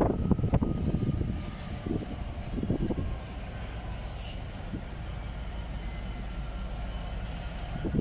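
Class 66 diesel-electric freight locomotive's two-stroke V12 diesel engine running as it hauls a train of wagons slowly along yard tracks: a steady low rumble. There is uneven low buffeting over the first three seconds.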